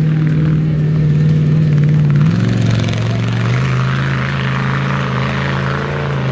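Toy RC crawler car running: its small electric motor and gearbox make a steady hum, and the hum drops in pitch about two seconds in.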